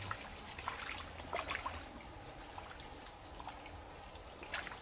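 Faint water trickling and dripping, with a few soft ticks scattered through it, mostly in the first couple of seconds.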